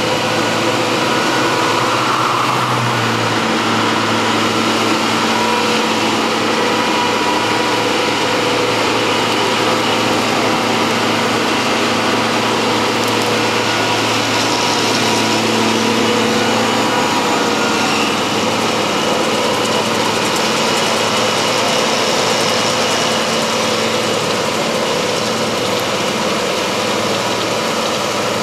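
Farm machinery engine running steadily under load, with a constant low engine hum and a broad mechanical noise over it.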